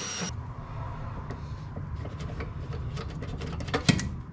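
A hole saw in a power drill cutting through the sheet-steel strut tower, whining, stops abruptly a moment in. Then a low hum, scattered light clicks of the tool being handled, and one sharp knock near the end.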